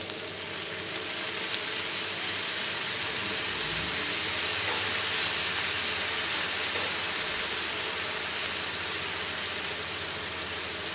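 Noodles and chicken frying in a pan with freshly added soy sauce, a steady sizzle that swells slightly midway.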